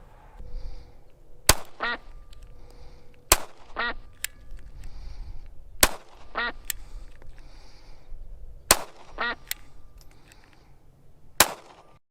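Five pistol shots a few seconds apart. All but the last are followed within about half a second by a short ringing note.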